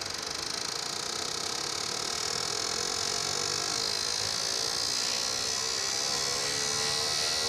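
Four fuel injectors pulsing on an injector test bench during a flow-equalization check. Their rapid clicking has merged into a buzz whose pitch slowly rises as the bench raises the pulse rate, over a steady hiss of fuel spraying into the glass measuring tubes.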